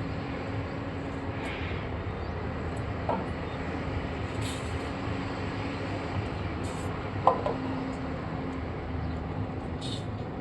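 Construction machinery running steadily with a low hum, with a few short knocks and a sharp clank about seven seconds in.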